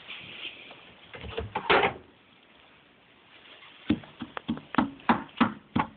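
Footsteps crunching through deep snow: a short cluster of crunches about a second in, then a quick, even run of crunching steps, about three a second, from about four seconds in.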